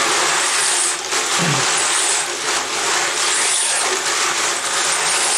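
Hot tap water running steadily from a bathroom faucet into a plastic tub of fired brass cartridge cases, the first hot-water rinse to loosen dirt and blackness, while the cases are stirred around by hand under the stream.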